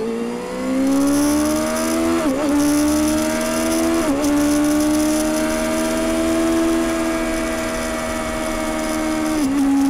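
2021 Kawasaki Ninja ZX-6R 636's inline-four engine through its stock exhaust, accelerating on the road. The engine note climbs and then drops sharply at each upshift, three quick shifts in the first few seconds. It then holds a fairly steady pitch and drops once more near the end.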